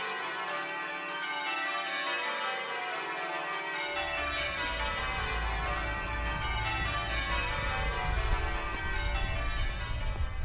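Church tower bells rung in change ringing: many bells striking one after another in a steady, overlapping run. A low rumble joins about four seconds in.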